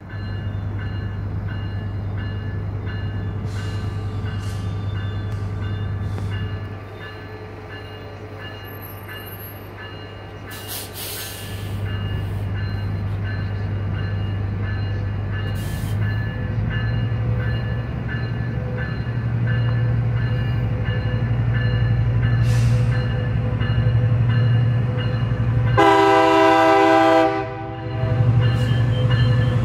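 Metrolink Tier 4 F125 diesel-electric passenger locomotive approaching, its low engine drone growing steadily louder. Near the end it sounds its horn once, a chord held for about a second and a half.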